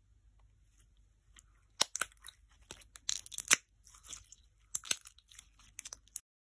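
Turquoise clear slime being pressed and squeezed by hand into a pink fizz slime packed with instant snow, giving clusters of crunchy crackles and pops that cut off abruptly near the end.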